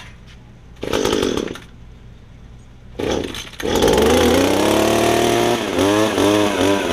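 Echo hedge trimmer's small two-stroke engine being started: a short burst about a second in, another near three seconds, then it catches and runs with an unsteady speed that wavers up and down, a sign it needs carburetor adjusting.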